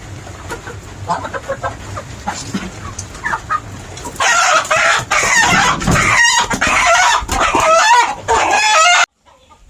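Chickens and roosters calling, soft and scattered at first. From about four seconds in many loud overlapping calls and crowing join in, then the sound cuts off abruptly near the end.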